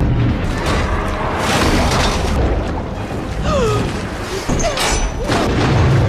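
Movie underwater action sound: a deep, continuous rumble and churning water with bubbles, mixed with dramatic music and a few short gliding tones.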